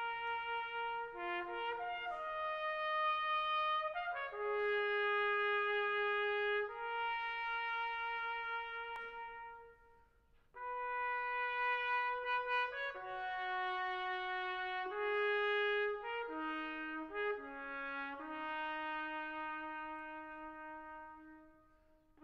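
Slow brass instrumental music: a melody of long held notes that breaks off briefly about ten seconds in, then resumes and fades out near the end.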